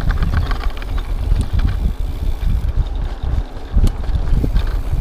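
Wind buffeting an action camera's microphone over the rumble and rattle of a mountain bike riding a bumpy dirt singletrack, with frequent small knocks from the bike over the ruts.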